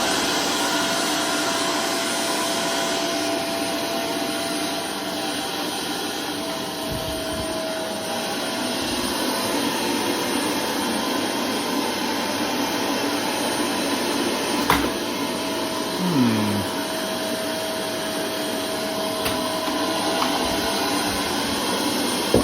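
Vacuum cleaner running steadily: a high motor whine over the rush of air, with one sharp knock about two-thirds of the way through.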